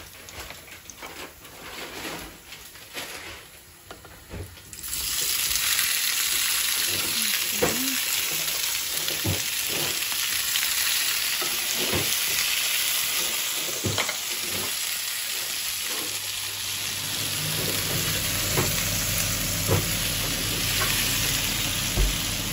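Chopped tomatoes hitting hot oil in a frying pan with garlic, ginger and dried chillies: a faint sizzle for the first few seconds, then a sudden loud sizzle about five seconds in that carries on steadily. A wooden spoon stirs and knocks against the pan now and then.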